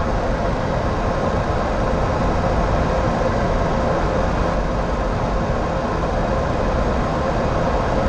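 Steady flight-deck noise of a Boeing 737-800 on short final: a constant rush of airflow and engine noise with a faint steady hum through it.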